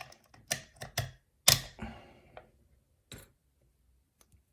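Sharp metallic clicks and clacks of a small wafer lock being handled: a cluster of them over the first two seconds, the loudest about a second and a half in, then a single click a little after three seconds and two faint ticks near the end.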